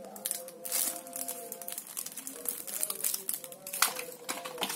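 Plastic wrapping and small accessories rustling and clicking as they are handled and set down, with a couple of sharper crinkles, about a second in and near the end. Faint music plays underneath.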